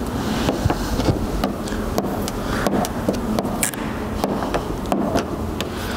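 Plastic squeegee and hands working wet tint film on a headlight lens: scattered light clicks and taps over a steady background noise.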